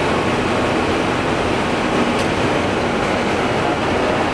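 Steady rush of airflow and engine noise on a Boeing 747-400's flight deck in the climb after takeoff.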